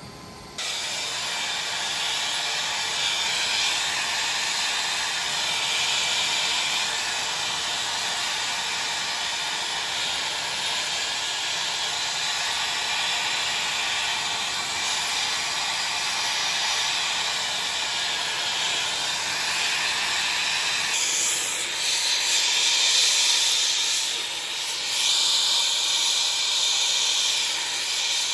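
Air-acetylene turbo torch lit by its built-in sparker, its flame hissing steadily while it heats 3-inch copper pipe for soldering. The hiss starts suddenly about half a second in and gets a little louder and more uneven near the end.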